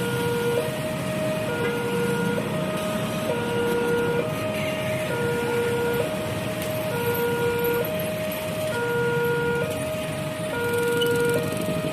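Railway level-crossing warning siren sounding its new two-tone alarm, switching steadily between a lower and a higher tone about once a second.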